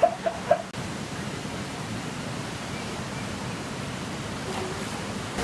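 Steady, even rushing noise, opening with two brief voice-like yelps in the first half-second.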